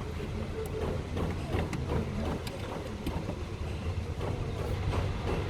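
A steady low engine rumble, with faint voices and a few light clicks.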